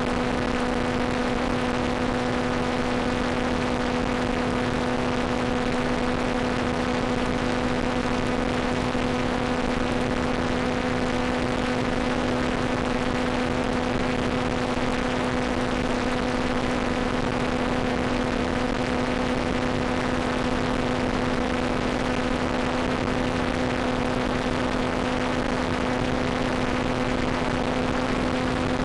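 Steady hiss with a constant low hum tone and its overtone, unchanging throughout: the background noise of the analog FPV video link's audio channel.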